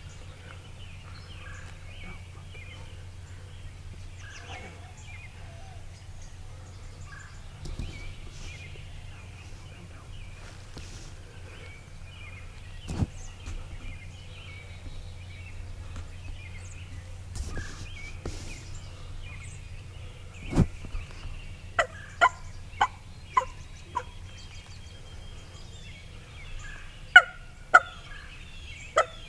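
Wild turkeys calling: scattered faint calls, then a quick run of about five sharp calls roughly half a second apart around twenty-two seconds in, and three more near the end.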